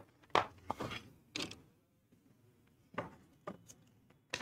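Sheets of paper rustling in short, separate bursts as they are handled and turned over at a wooden lectern.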